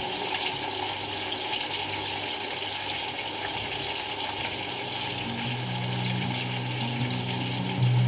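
Tofu cubes deep-frying in hot oil, a steady crackling sizzle. Low background music comes in over the last few seconds.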